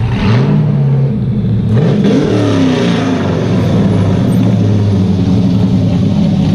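Cammed LS1 V8 of a NASCAR Craftsman Series truck, running loud as the truck pulls away and drives around. It revs up quickly about a third of a second in, revs again around two seconds, then runs steadily.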